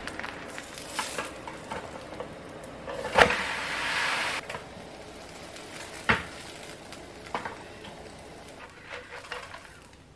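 A flour-tortilla quesadilla sizzling in olive oil in a pan. About three seconds in there is a sharp clatter followed by about a second of louder sizzling as the quesadilla is turned onto the hot pan, and later a few short knocks of a spatula against the pan.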